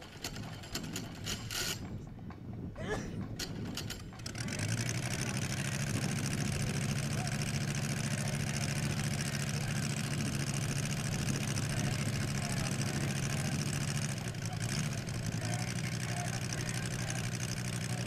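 Engine of a giant-scale radio-control F4U Corsair model running on the ground, coming up louder about four seconds in and then holding a steady idle. A few sharp clicks come before it.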